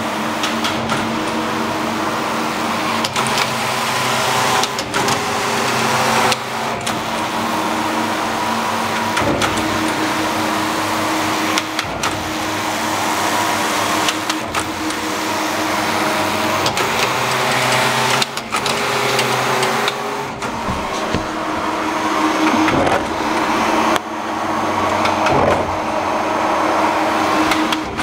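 Shima Seiki SES234CS 5-gauge computerized flat knitting machine running, its carriage traversing the needle beds with a steady mechanical whir and clatter. Short breaks in the sound come every two to three seconds.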